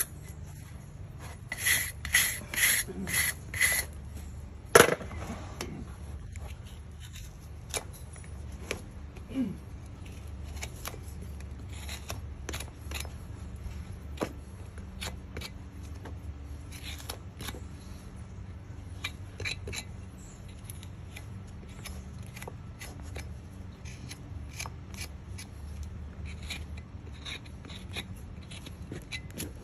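Farrier's hand tools scraping and paring the sole of a horse's hoof. A quick run of about five rasping strokes comes early, then a single sharp click, then a long series of short knife cuts.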